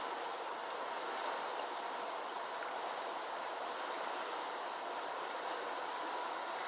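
Steady rushing of a flooded creek's running water.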